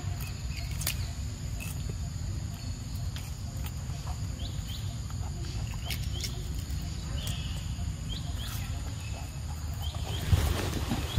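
Young macaques chewing and crunching pieces of green fruit: a run of small crisp clicks and smacks over a steady low rumble. About ten seconds in it gets louder and busier as one monkey comes right up close.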